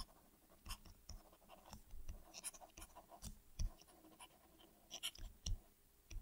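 Faint taps and scratches of a stylus writing by hand on a tablet, in quick, irregular strokes.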